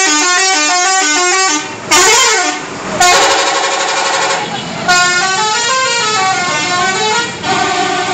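Telolet musical horn of a Mustika Holiday bus playing several runs of quick stepping notes, one melody after another with short breaks between them.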